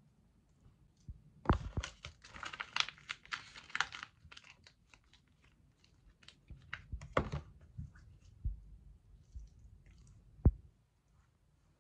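A foil skincare pouch crinkling and rustling as it is handled and squeezed to get out the last of its liquid, with scattered small clicks, then a single sharp knock on the tabletop near the end.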